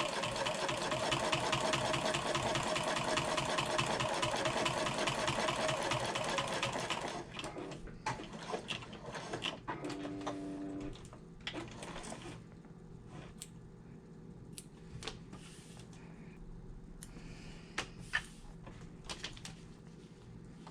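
Sewing machine stitching at a steady fast rate while top stitching a fabric strap, then stopping about seven seconds in. After that come scattered clicks and handling sounds, with a short buzz about ten seconds in.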